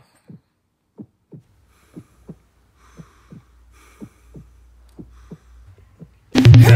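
Heartbeat sound effect: pairs of low thumps, lub-dub, about once a second. Near the end, loud electronic music with a heavy bass and a driving beat cuts in suddenly.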